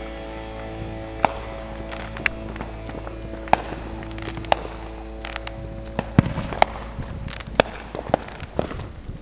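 Firework bangs and cracks, about one a second, some sharper and louder than others, over a song playing in the background. The music fades out about six seconds in.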